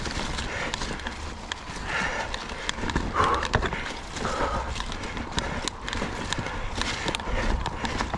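Mountain bike (Ibis Ripmo V2) rattling over a rocky trail: a quick, irregular run of clicks and knocks as the tyres, chain and frame hit the rocks.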